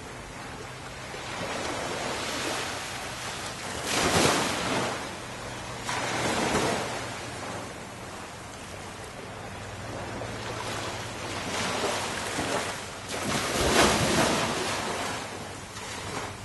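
Ocean surf washing in. The sound swells and recedes, with louder surges about four seconds in, again soon after, and once more near the end.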